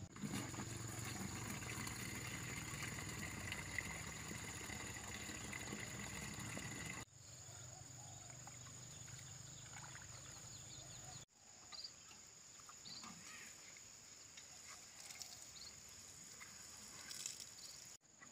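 Insects droning, a steady high whine with faint scattered rustles and ticks. Low rumbling under it stops abruptly about seven seconds in, and the background changes abruptly twice more, as at cuts.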